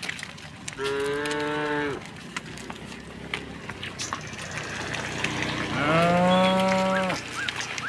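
Cows mooing: two long moos, one about a second in and a longer, louder one starting near the middle and ending about a second before the end.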